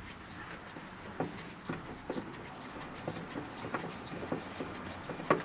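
Beech-dowel support leg being unscrewed by hand from its threaded rod under a bed platform: quiet rubbing and turning noise with about six light knocks scattered through.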